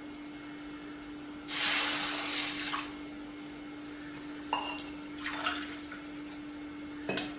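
Water poured into a cooking pan, twice: a longer pour about a second and a half in, and a shorter, broken one about three seconds later. A clink near the end, over a steady low hum.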